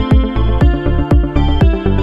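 Electronic dance music with a steady beat, about two beats a second, over deep bass and held synthesizer notes.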